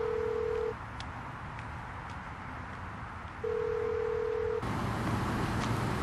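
Telephone ringing tone heard through a handset, the call ringing out unanswered: two long steady beeps of one low tone, about three seconds apart. About four and a half seconds in it cuts suddenly to steady street traffic noise.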